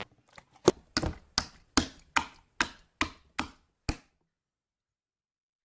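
A series of about nine sharp taps or knocks, evenly spaced at roughly two and a half a second, stopping about four seconds in.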